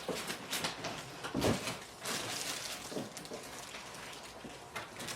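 Scattered light knocks and rustles as the cardboard box and plastic parts of the animatronic are handled, over faint room noise.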